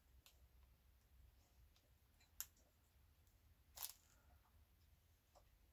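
Near silence: room tone with two brief faint clicks, about two and a half and four seconds in.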